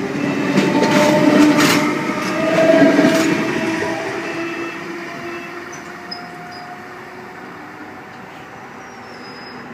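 Sydney Trains V-set (V10) double-deck Intercity electric train pulling away past the track, with wheel clicks and a steady motor whine. It is loudest in the first three seconds, then fades steadily as it runs off into the distance.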